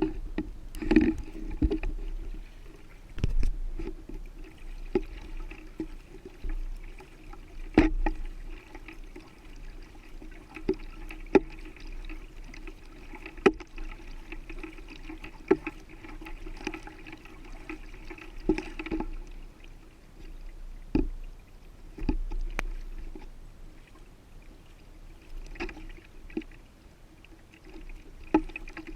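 Kayak paddling: the paddle blades dip and splash with water trickling off them, and sharp knocks come every second or two.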